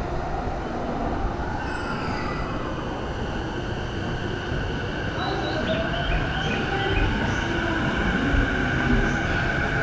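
JR Saikyo Line electric train pulling away and picking up speed: its motors whine in tones that climb in pitch over a steady rumble of wheels on rail.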